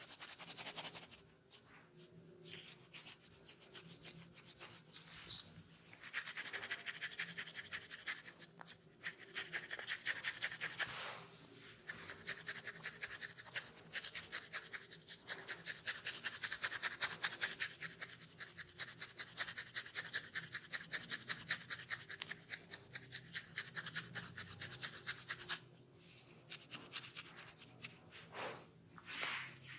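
Fingernails or a comb scratching through hair on a dry, dandruff-flaked scalp. It comes in stretches of rapid, rasping strokes broken by short pauses.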